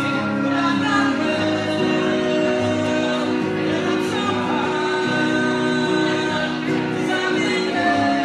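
Live band music: men singing over strummed electric and acoustic guitars.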